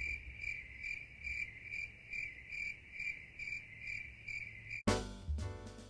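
Cricket chirping in even pulses, a little over two a second. About a second before the end it cuts off abruptly and music with a drum kit starts.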